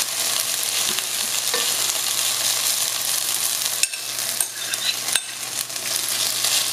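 Shredded hash brown potatoes sizzling steadily in hot oil in a pan, while they are stirred and pressed down, with a few faint scrapes against the pan.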